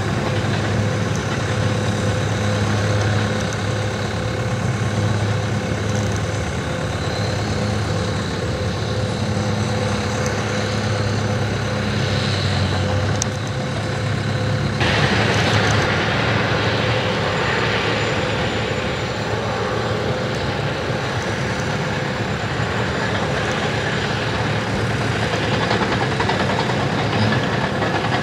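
Heavy diesel engine of a John Deere four-wheel-drive tractor towing a pull-type earth scraper, running with a steady low drone. About halfway through, the sound changes abruptly to a Cat crawler dozer's diesel engine working, with a brighter, hissier sound and less low drone.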